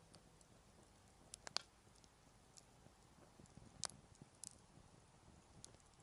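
Wood campfire crackling faintly: a handful of sharp, scattered pops against near silence.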